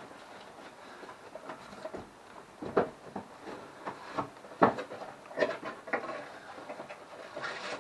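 Rustling of paper packing and cardboard as parts are dug out of a box, with irregular knocks and clatters of items being handled; the two loudest knocks come about three seconds and about four and a half seconds in.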